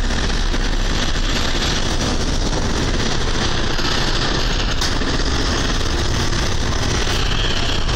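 Steady, loud rumble of ship engines, with a rushing noise over it that does not change.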